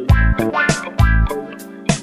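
Music: an instrumental stretch of a song with a steady beat and deep bass notes about once a second.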